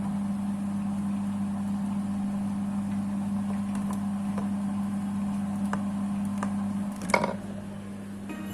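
Kitchen appliance motor humming steadily, with a few light clicks, and a sharp clatter about seven seconds in, after which the hum is quieter.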